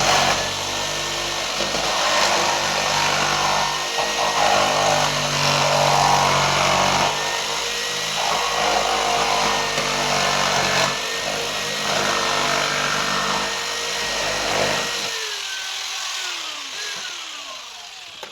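Electric power saw running and cutting through the wall, bogging in and out under load in several passes, then switched off about 15 seconds in, its motor winding down in falling pitch.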